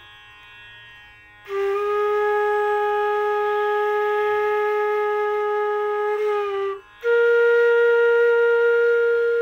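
Bansuri (bamboo transverse flute) playing long held notes of Raag Yaman in G#. After a pause of about a second and a half comes one steady note held about five seconds, then a brief break and a higher held note.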